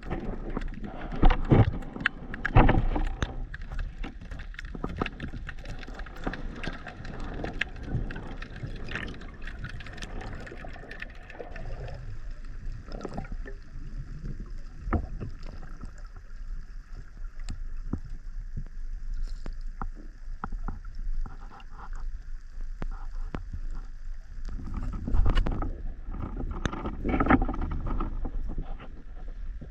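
Water sloshing and splashing with irregular knocks and bumps, busiest at the start and again near the end.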